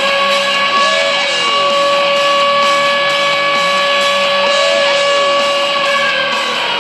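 Colorado Avalanche hockey goal horn sounding one long, steady blast that stops shortly before the end, with a rock goal song playing underneath.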